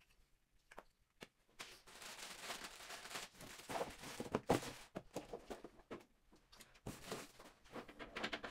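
Plastic wrapping rustling and crinkling while a small cardboard box is handled, with a few light knocks scattered through.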